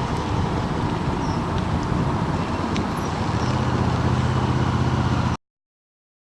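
Wind and road noise from riding a Zero DSR electric motorcycle, with a low steady hum joining about three and a half seconds in; it cuts off suddenly about five seconds in.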